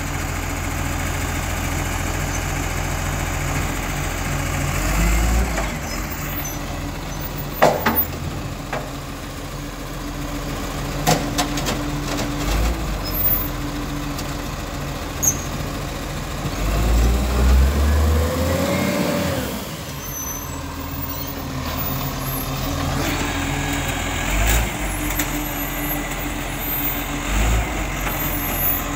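Garbage truck's diesel engine running steadily, with several sharp clunks and a rising-then-falling whine about two-thirds of the way through, and low surges of engine noise as it works and pulls forward.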